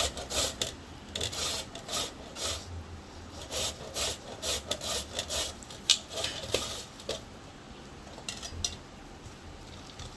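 A knife cutting taro stems into small pieces on a cutting board, with short strokes about twice a second that thin out after about seven seconds.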